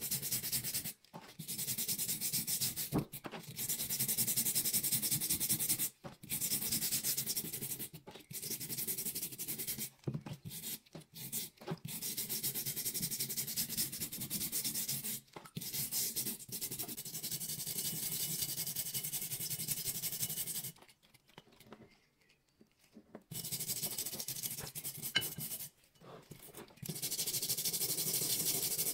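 Toothbrush bristles scrubbing a wet, rusty iron, in runs of quick back-and-forth strokes. There are short breaks between runs and a longer pause about three-quarters of the way through.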